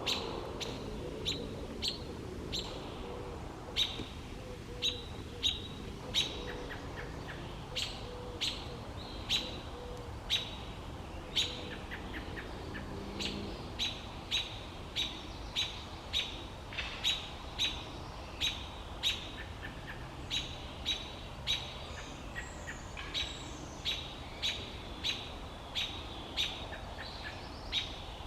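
A robin calling: short, sharp chirps repeated over and over, spaced about a second apart at first and quickening to about two a second from the middle on. A low, uneven sound runs underneath for roughly the first half.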